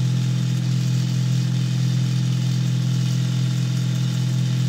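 Steady, unchanging low mechanical hum with a hiss above it, like a small motor or fan running.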